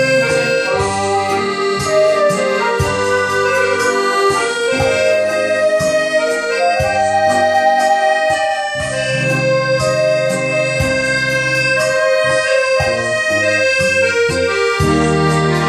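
A piano accordion and a Yamaha Electone electronic organ playing a tune together: held, reedy melody notes over organ bass notes and a steady beat.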